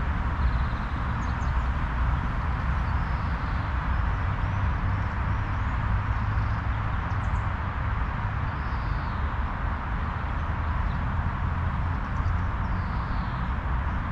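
Steady outdoor background noise, a constant low rumble and hiss, with faint bird chirps every few seconds.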